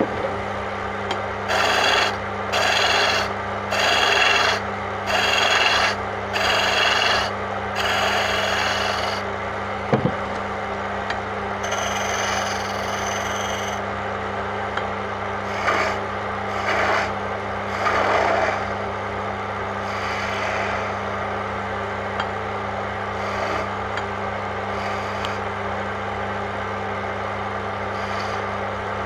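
A tool scraping against a wooden chess rook spinning on a lathe, in strokes of under a second, about one a second for the first nine seconds and a few more past the middle, over the steady hum of the lathe's motor.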